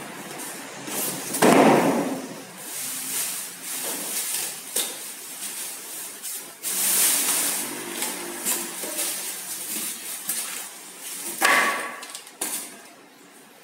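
Cardboard carton scraping and bumping as it is lifted up off a refrigerator, loudest about a second and a half in. Then the clear plastic bag over the fridge rustles and crinkles as it is pulled off over the top.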